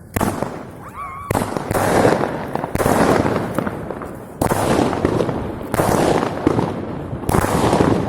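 Fireworks going off: a series of loud bangs about one to one and a half seconds apart, each trailing off in a fading rush of noise.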